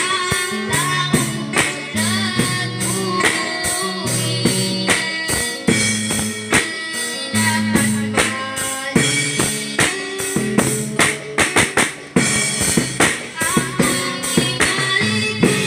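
A girl singing a Tagalog praise song into a microphone while playing a drum kit, with cymbal and bass drum hits in a steady beat, backed by guitar and amplified through a portable speaker. The music breaks off briefly about twelve seconds in.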